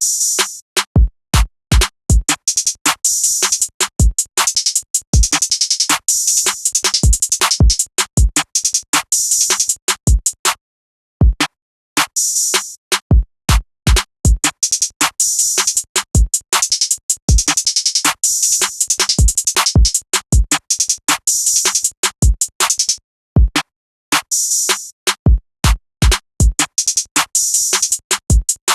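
Trap drum beat from a Native Instruments Maschine MK2: rapid hi-hat rolls and snares over deep 808 kick hits, with the pattern dropping out briefly twice.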